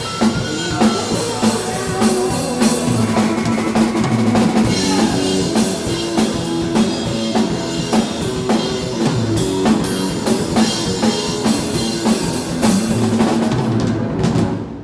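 Live rock band playing, with the drum kit loud in front: steady bass drum, snare and cymbal hits over the band's held bass and guitar notes. The music stops abruptly near the end.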